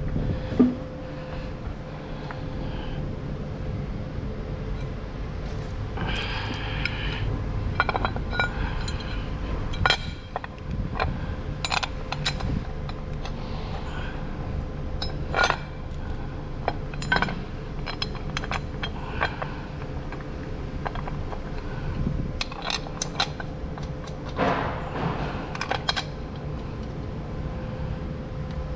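Scattered sharp metallic clinks and scrapes of tools and bolts being handled, irregularly spaced, over a steady mechanical hum.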